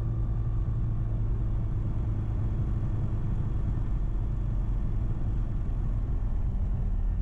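Rotax 914 turbocharged four-cylinder engine of a Diamond HK36 TTC Super Dimona motorglider running steadily at low taxi power, a steady low drone heard from inside the cockpit.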